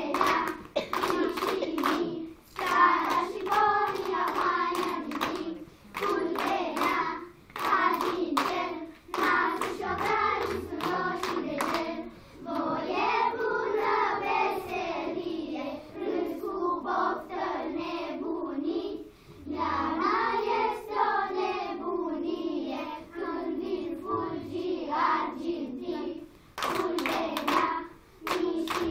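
A group of young children singing a song together while clapping their hands along with it.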